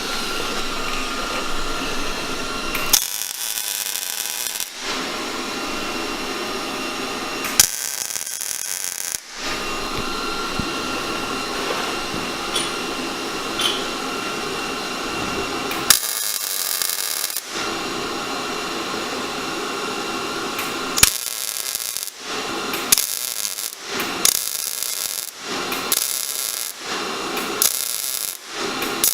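Welding arc in repeated bursts of noise: a few longer runs, then short bursts in quick succession near the end, as for stitching or tacking welds. Under the bursts is a steady hum.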